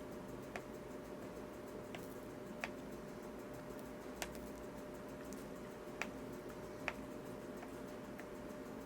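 Sparse light clicks and ticks from stained-glass soldering work, about six of them at uneven intervals, over a steady low hum with a faint constant tone.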